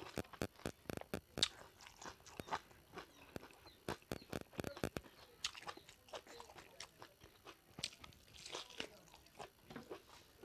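A person chewing and biting into pieces of pig leg curry, with irregular wet crunching clicks, thick and fast for the first half, then sparser.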